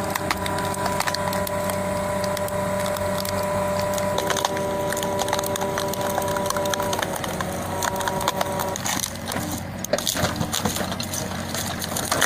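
A wood-processing machine working timber: a steady mechanical whine under many sharp cracks and splintering of wood. The whine stops about three-quarters of the way through, leaving the cracking.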